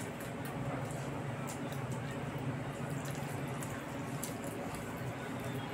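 Close wet chewing and mouth clicks of someone eating rice and curry by hand, with soft squishing of food between the fingers, over a steady low hum.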